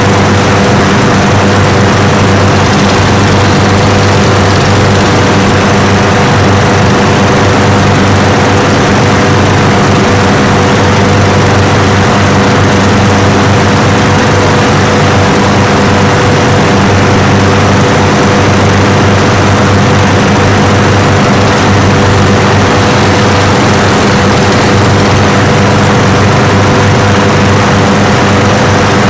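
A row of walk-behind rotary lawn mowers' small engines running together: a loud, steady drone.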